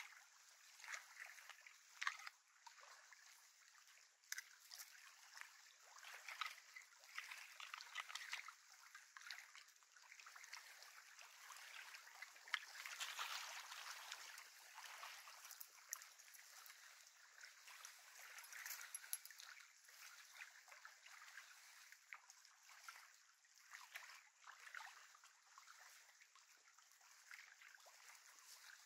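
Faint lake water lapping and trickling at the shore, slightly louder around the middle, with a few small clicks.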